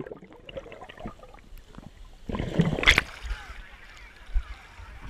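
Water sloshing and gurgling around an action camera's waterproof housing as it is dunked under the sea surface and brought back up, with a louder splash about two and a half seconds in as it breaks the surface.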